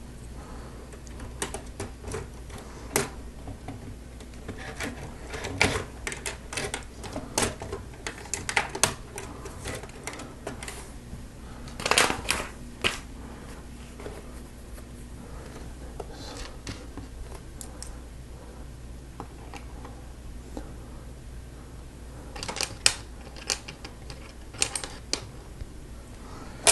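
Plastic Lego Technic parts clicking and rattling as they are handled and pressed together, in irregular clicks with a louder cluster about twelve seconds in.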